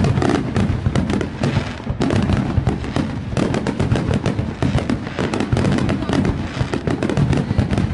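Fireworks display: a rapid, dense barrage of aerial shell bursts, with bangs following one another almost without pause amid crackling.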